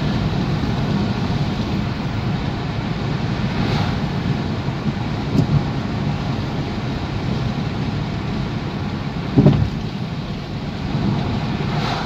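Road noise heard inside a moving car's cabin: a steady rumble of tyres and engine with some wind, and a brief thump about nine and a half seconds in.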